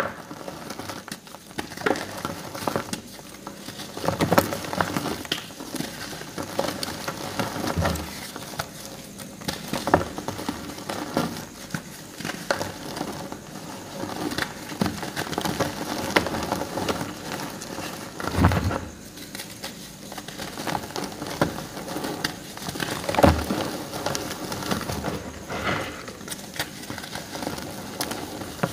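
Painted reformed gym chalk chunks crushed by hand: dry crunching and crackling as the chalk and its thin painted shell break apart, with a few louder crunches as bigger pieces give way.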